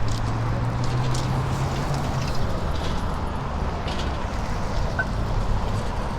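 Street traffic noise with a low engine hum that fades after about two and a half seconds, plus a few faint clicks.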